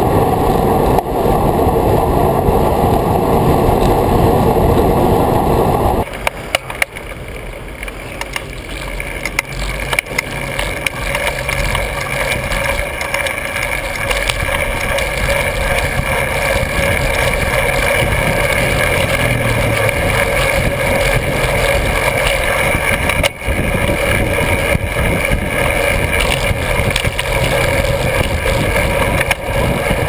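Wind and road noise on a bicycle-mounted camera's microphone while riding. The sound changes abruptly about six seconds in, dropping from a heavy low rumble to a thinner, steadier noise.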